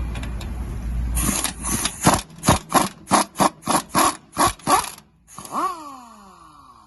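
Ratchet wrench working the rear caliper bracket bolt loose, a run of about a dozen short rasping strokes, roughly three a second. Near the end comes a falling whine.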